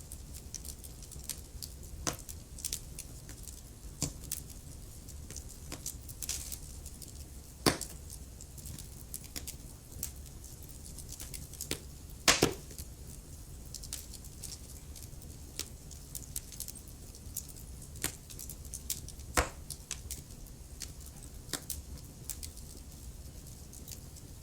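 Wood fire in a fireplace crackling: irregular small snaps with a few louder pops scattered through, over a low steady rumble.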